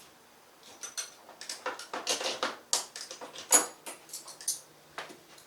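Metal sockets and hand tools clinking and rattling as they are handled, a quick run of sharp clacks with the loudest near the end.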